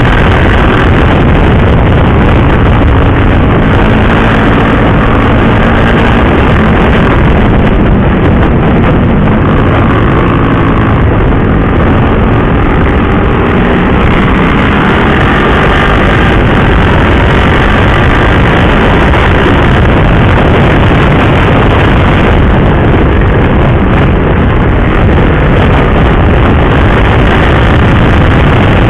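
KTM RC 390's single-cylinder engine running at road speed on a ride, its pitch rising and falling with the throttle, under steady wind rush on the microphone.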